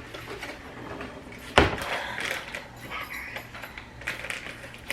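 Light handling and rustling noises, with one sharp knock about a second and a half in, like something hard being set down or a cabinet door bumping.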